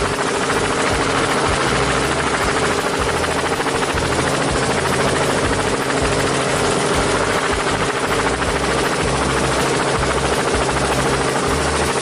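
A vehicle sound effect: a loud, steady engine drone with a constant hum over a flickering low rumble.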